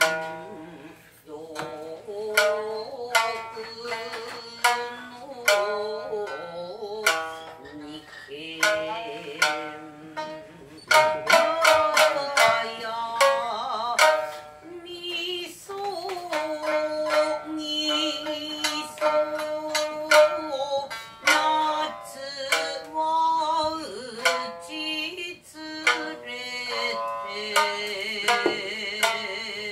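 Shamisen played with a large plectrum: sharp twangy plucked notes, some struck in quick runs, with a woman's voice singing a slow, wavering traditional Japanese melody over it in places.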